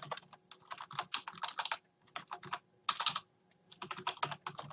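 Computer keyboard being typed on, a web address keyed in as quick runs of keystrokes with short pauses between them.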